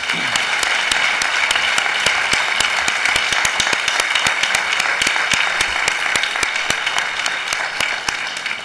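A roomful of people applauding: dense, steady clapping that fades out near the end.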